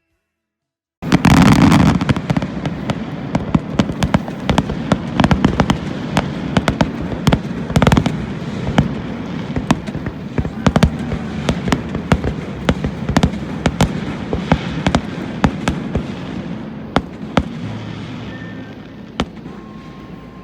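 A fireworks display going off: a dense run of sharp bangs and crackles over a continuous low rumble. It starts suddenly about a second in and thins out toward the end.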